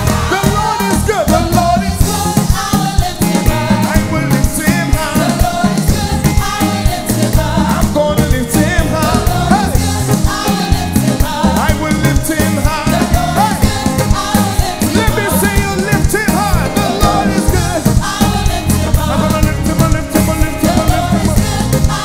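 Live gospel worship music: a band plays with a steady beat while a lead singer and backing vocalists sing the words "lift Him up".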